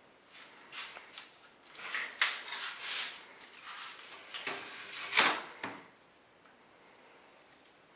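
Irregular short knocks, clicks and rustling handling noises, the loudest about five seconds in, then quiet.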